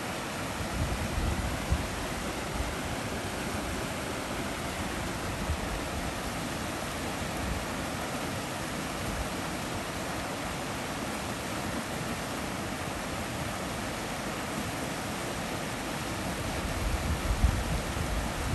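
Shallow stream rapids rushing steadily over rocks, an even hiss of white water. Wind buffets the microphone near the start and again near the end.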